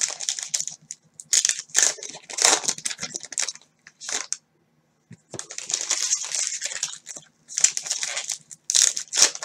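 Plastic wrapper of a 2018 Topps Heritage High Number baseball card pack crinkling and tearing in irregular bursts as the pack is opened, with a brief pause in the middle.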